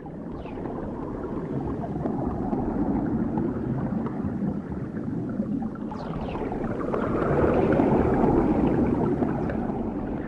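Sound effect for an animated logo intro: a rushing noise that swells, loudest near the end, with two short falling whistle-like sweeps, one near the start and one about six seconds in.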